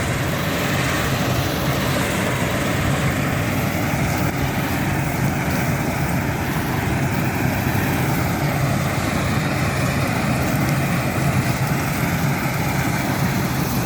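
Combine harvester running steadily while harvesting oats: a constant machine drone with a strong low hum that holds level throughout.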